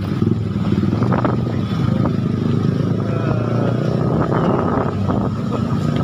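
Motorcycle engines running in busy street traffic, a steady low rumble, with faint voices over it.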